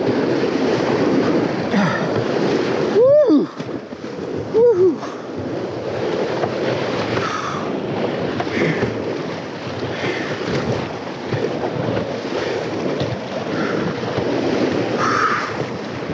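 Whitewater rushing and splashing around a kayak running a rapid, with water and wind buffeting the boat-mounted camera's microphone. About three and four and a half seconds in, two short, loud calls rise and fall in pitch.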